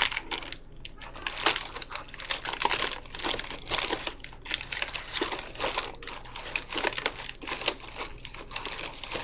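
Plastic bag crinkling and rustling in irregular crackles as it is handled close to the microphone.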